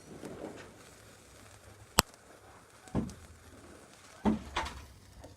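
Fireworks going off: a sharp crack about two seconds in, then two duller bangs about a second apart.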